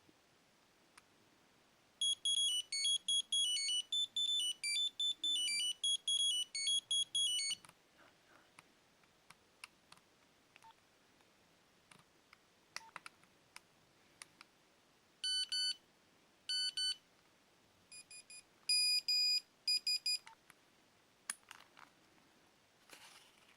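Nokia 7110 playing its preloaded monophonic ringtones through its small speaker. A fast beeping melody starts about two seconds in and runs for some five seconds. Then, between faint clicks, come two short repeated beep phrases and another short burst of beeps.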